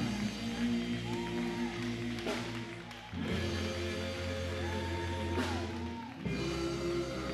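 Live gospel quartet music: the singers and band hold long chords that change about every three seconds, with two sharp hits along the way.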